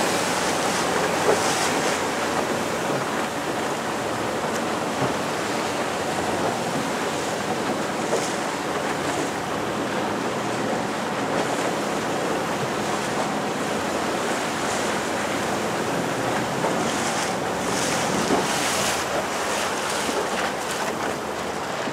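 Steady noise of wind buffeting the microphone and open sea water around a small boat, with surf breaking against the rocks, and a few brief splashy flickers near the end.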